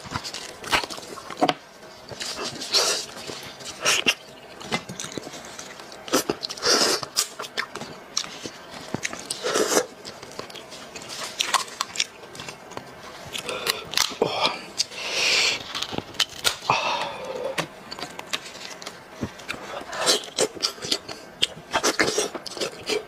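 Close-miked eating sounds: a person biting and chewing cooked head meat pulled off the bone by hand, in short, irregular wet clicks and bursts.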